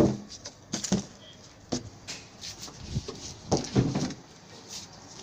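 Scattered knocks and light clatters of a composite panel and tools being handled, loudest a little after the middle.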